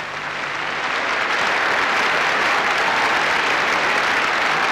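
Arena audience applauding: a dense, steady patter of many hands clapping, growing a little louder over the first second or two.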